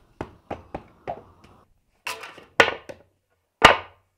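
Wooden board knocking against a concrete floor: four light knocks in the first second, then a short scuff and heavier knocks, the loudest about three and a half seconds in.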